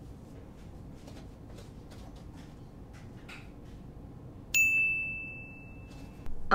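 A single bright ding about four and a half seconds in: one clear high bell-like tone that rings and fades for about a second and a half, then stops short. Before it, only faint clicks and rustles.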